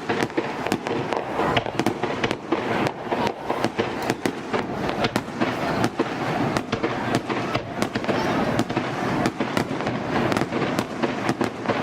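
Fireworks going off in rapid succession: a dense run of sharp bangs and crackles, several each second.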